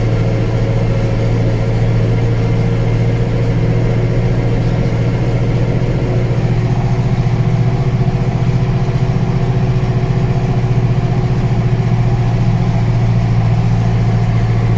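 Zetor Proxima GP 110 tractor's diesel engine running steadily under load while pulling a trailer loaded with logs up a climb, heard from inside the cab as an even, unchanging low hum.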